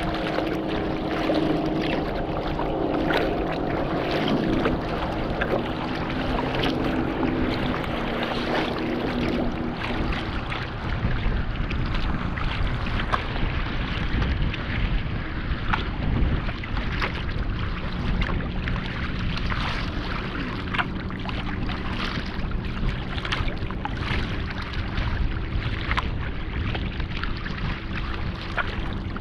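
Kayak hull cutting through choppy lake water: steady sloshing with frequent sharp splashes and slaps of wave chop against the bow, under gusts of wind on the microphone. A faint steady hum runs low underneath.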